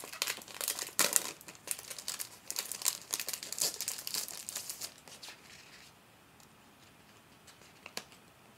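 Paper rustling and crinkling as a small paper envelope is opened and the papers inside are handled, busy for about five seconds and then mostly quiet apart from one small click near the end.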